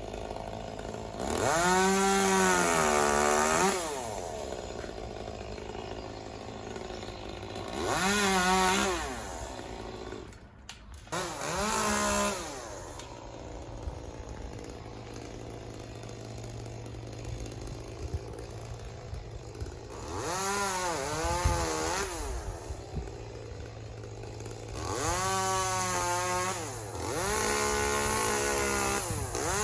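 Chainsaw idling with a steady low hum and revved up about six times, each burst rising and then falling in pitch over one to three seconds.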